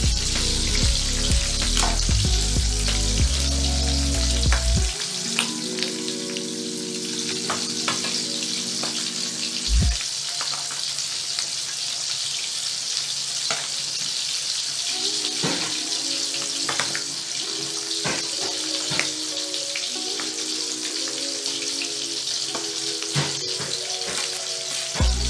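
Bilong-bilong fish frying in hot oil in a pan: a steady sizzle with scattered pops and crackles, and a single low thump about ten seconds in. Background music plays underneath.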